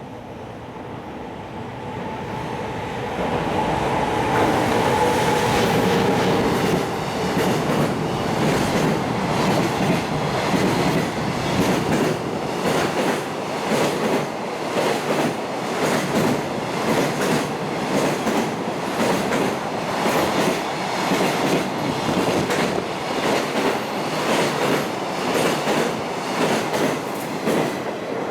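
High-speed freight train passing through a station without stopping: the locomotive comes in with a rising rush and a steady whine, then the long string of freight wagons follows with rhythmic wheel clatter over the rail joints.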